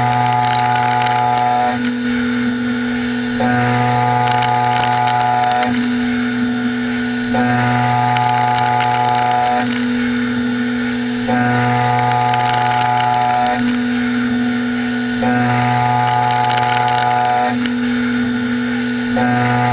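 Sandvik CoroMill Plura HFSM solid carbide end mill side milling a metal block on a CNC machining centre along a WaveForm toolpath. The machining sound repeats about every four seconds: a pitched hum of about two seconds, then a plainer, noisier stretch of just under two seconds, five times over.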